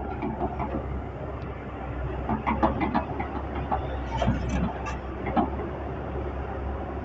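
Hitachi hydraulic excavator running with a steady low engine rumble, overlaid by irregular metallic clanks and knocks from the working machine.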